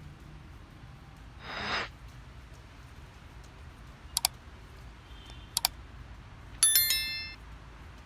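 Subscribe-button overlay sound effects: a short whoosh, then a mouse double-click about four seconds in and another just over a second later, then a bright notification-bell ding with several ringing tones near the end. A faint low rumble sits underneath.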